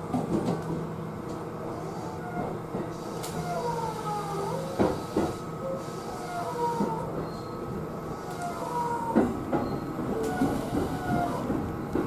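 Interior of a JR East E233-series electric train running toward its terminal at Takao, with a steady low hum, sharp clicks as the wheels pass over rail joints, and repeated short high squeals from the wheels.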